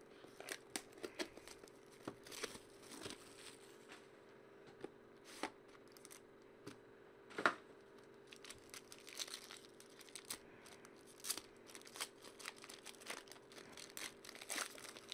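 Clear plastic wrapping being torn and crumpled by hand as a sealed trading-card box is opened: faint, scattered rustles and crackles, the loudest about seven and a half seconds in.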